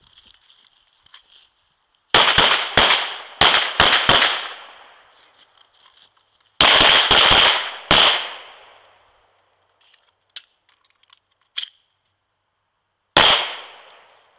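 Pistol shots fired in quick strings: about seven rapid shots, a pause, about five more, then a single last shot near the end. Two faint sharp clicks come in the gap before the last shot.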